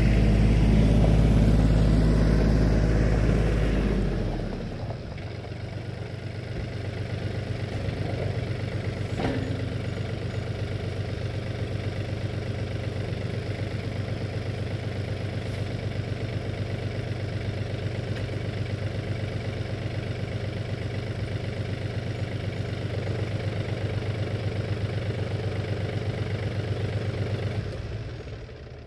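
RK 37 compact tractor's diesel engine running loud and close for about the first four seconds, then settling into a steady idle.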